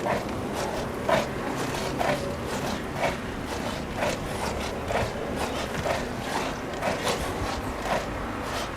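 A dog barking steadily, one short bark about once a second, over low traffic and road noise.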